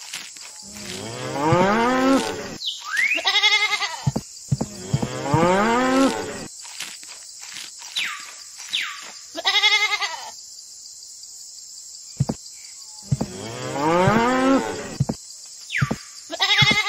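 Farm-animal sound effects: a cow mooing in three long calls, with shorter, quavering bleats between them, over a steady high hiss.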